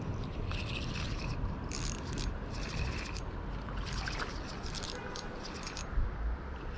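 A hooked rainbow trout being landed in a shallow creek: short, irregular bursts of crisp splashing over a steady low rumble of wind and moving water.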